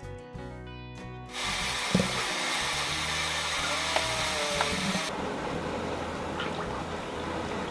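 Brief background music, then about a second and a half in a steady rushing hiss of liquid being poured, which turns softer and duller about five seconds in.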